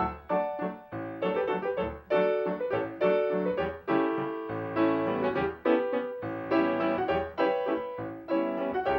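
Piano music accompanying a silent film: a tune of struck notes and chords over a bass line, several notes a second.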